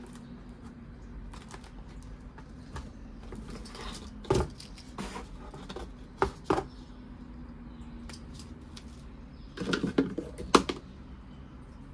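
Handling noises of unpacking a pressure washer kit: scattered clicks and knocks of plastic parts, hose and packaging being lifted and set down in a cardboard box, with a short flurry of knocks near the end. A faint steady hum runs underneath.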